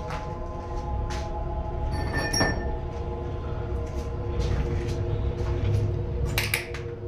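Eerie background music: a drone of several steady held tones, with a short bell-like ringing chime about two seconds in. Under it run a low rumble and scattered soft knocks from the camera being handled.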